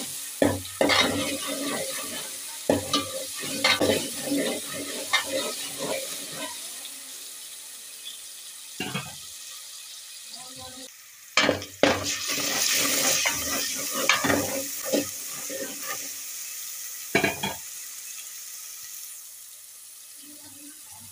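Garlic-ginger paste and cumin seeds sizzling in hot oil as they are sautéed, with a steady hiss. A metal slotted spoon scrapes and clinks against the metal pot in several spells of stirring.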